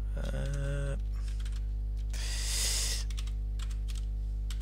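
Steady electrical mains hum with a few computer keyboard keystrokes. A short hummed voice sound comes near the start, and a brief hiss of noise about two seconds in.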